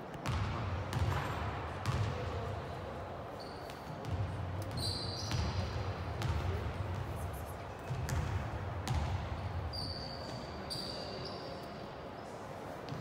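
Basketballs bouncing on a gym floor in repeated low thumps, with a few short, high sneaker squeaks.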